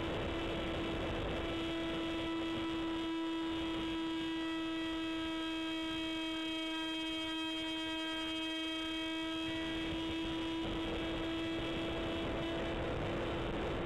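Airborne audio from an electric F-27Q Stryker RC flying wing in flight: a steady hum with a ladder of overtones over rushing motor and wind noise. The rushing drops away from about three seconds in until about ten seconds in, leaving the hum clear, then returns.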